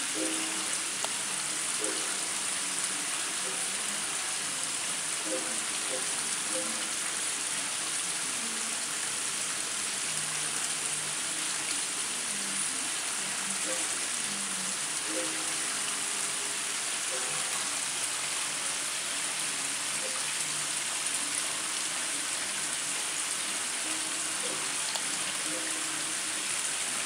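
Water splashing steadily into a koi pond, an even hiss that does not change.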